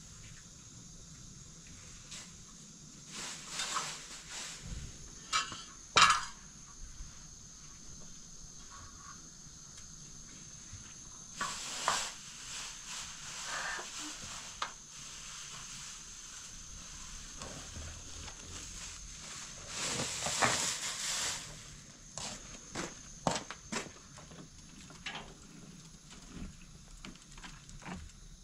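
Household handling sounds: rustling of plastic bags and cloth, light clinks and knocks, and footsteps on a concrete floor, with a sharp knock about six seconds in and a longer rustle about twenty seconds in.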